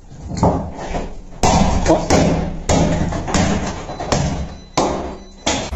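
A series of sharp thumps, about one every two-thirds of a second, with some voice mixed in.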